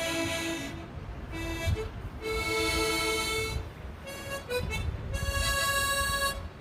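Solo harmonica playing a slow melody of held notes in short phrases with brief pauses between them, over a low outdoor rumble.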